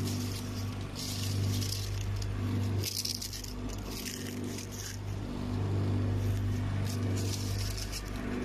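Crisp fried sweet potato chips rustling and clattering as a hand stirs and picks through them on a plastic crate, in irregular bursts. A steady low hum runs underneath.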